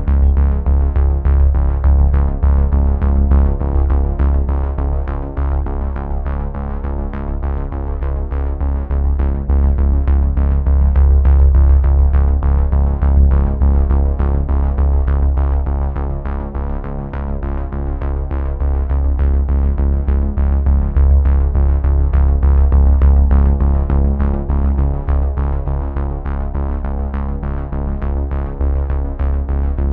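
Background music: synthesizer with a steady beat and a heavy bass line.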